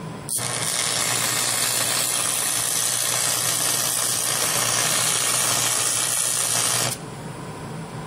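Stick welding on steel: the arc strikes about a third of a second in, sizzles steadily for about six and a half seconds, then stops abruptly.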